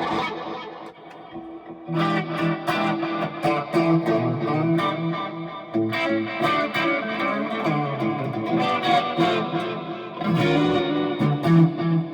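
Amplified Gibson Les Paul Custom electric guitar with Custombucker humbucking pickups: a chord rings and fades, then about two seconds in a run of quickly picked notes and chords begins.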